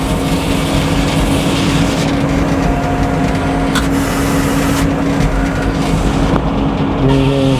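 Old Frick circular sawmill running: a steady, loud mechanical drone with a constant hum and a noisy hiss of saw and machinery over it.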